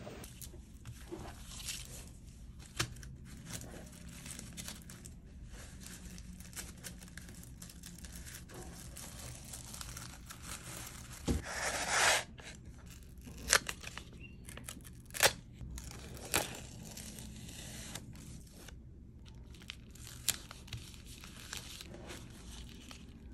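Kraft paper packing material being handled: honeycomb paper wrap crinkling and rustling, with a longer tearing rasp about halfway through as a strip of kraft paper is pulled and torn at a tape dispenser, then a few sharp taps.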